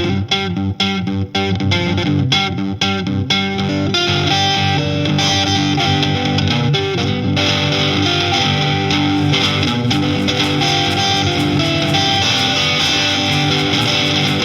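Rock music with distorted electric guitar. Choppy, stop-start chord stabs give way about four seconds in to a fuller, continuous section.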